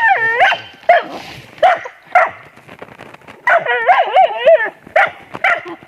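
A dog giving short, high, yelping barks, with a long wavering whine-yelp at the start and a run of whining yelps about three and a half seconds in.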